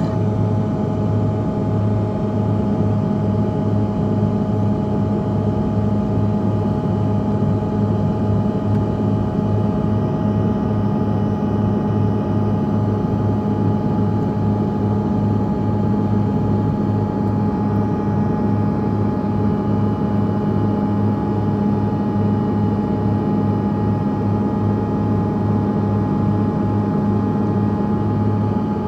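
Cabin noise of a Bombardier CRJ-200 regional jet: its rear-mounted turbofan engines running steadily, a constant hum with several held tones over a rushing noise, with no rise or fall in pitch.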